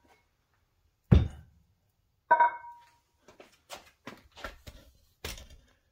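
Heavy 50-pound pancake weight plates being handled on a mat: a dull thud about a second in, then a clank that rings briefly as plate knocks against plate, followed by a run of lighter knocks and clicks as the two plates are set together on edge.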